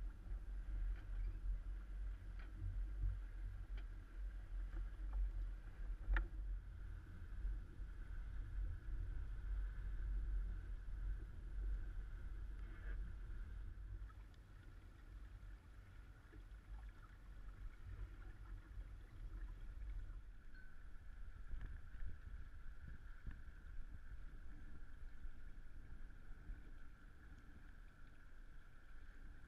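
Wind buffeting the microphone and water rushing along the hull of a small sailboat under way, with a low rumble that eases about halfway through. A faint steady high tone runs underneath, and there is one sharp click about six seconds in.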